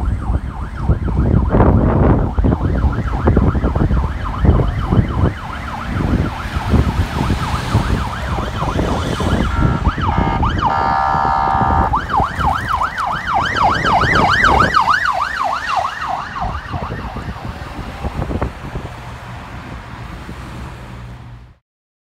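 Fire apparatus electronic sirens wailing up and down over a low traffic rumble. About ten seconds in comes a steady horn blast, then a fast yelp of two to three sweeps a second. The sound cuts off abruptly near the end.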